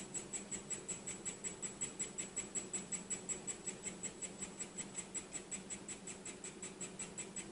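Handheld 3D printing pen's filament feed motor running at a lowered speed as it extrudes filament, ticking evenly about six times a second over a faint steady hum.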